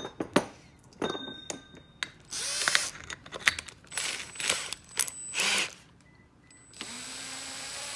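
Milwaukee cordless drill spinning a 2 1/8 inch hole saw on an arbor in the air, run in short bursts with clicks from handling, then held running steadily for the last second or so. It is being checked for wobble on the arbor, and a little wobble has been noticed.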